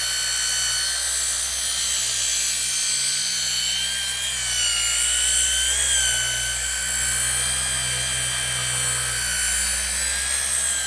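Compact cordless mini polisher running steadily as it polishes a carbon fiber mirror, a high motor whine whose pitch sags slightly and recovers a few seconds in as the pad is pressed on.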